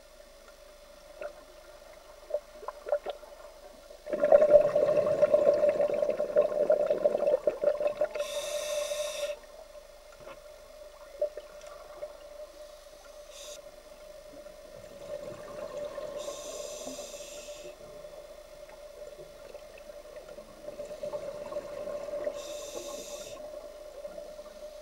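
A scuba diver breathing through a regulator underwater: a long, loud rush of exhaled bubbles, then three short hissing inhalations spaced several seconds apart, over a steady hum.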